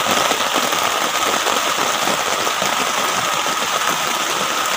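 Heavy rain falling on a tent, heard from inside: a dense, steady patter of countless drops on the fabric.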